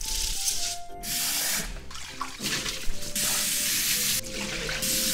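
Tap water running and splashing into a pot of rice in a stainless steel sink as the rice is rinsed by hand and drained through a mesh strainer. The water noise breaks off briefly a few times.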